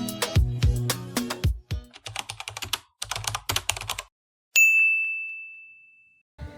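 Music with a beat ends about a second and a half in, then a quick run of keyboard-typing clicks, and near the end a single bright ding that rings and fades away.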